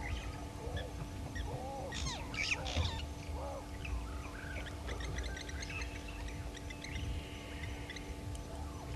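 Several wild birds calling in the bush: assorted chirps and whistles, a louder burst of calls about two seconds in, then a quick run of high ticking notes. A steady low hum and a low rumble lie underneath.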